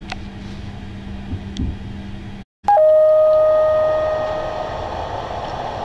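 Shipboard public-address chime: a short higher note, then a lower note ringing clearly and slowly fading, the signal that an announcement is about to start. Before it, a steady low hum, cut by a brief moment of silence.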